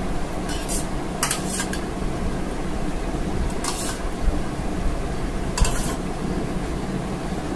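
Metal spoon scraping and clinking against a stainless steel bowl while scooping out curry, in four short bursts, over a steady low background hum.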